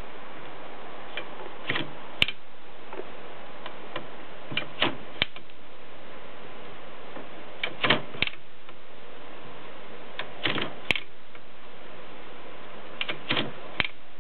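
1923 Adler 7 thrust-action typewriter being typed on slowly: short groups of a few sharp clacks every two to three seconds, over a steady hiss.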